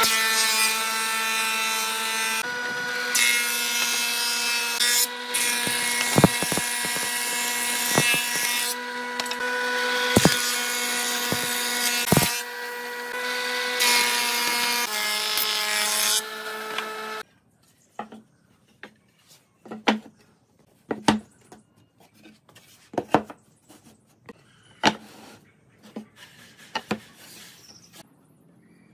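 A woodworking power tool running with a steady whine and cutting noise, its pitch shifting a few times. About seventeen seconds in it stops abruptly, and scattered sharp knocks and taps follow.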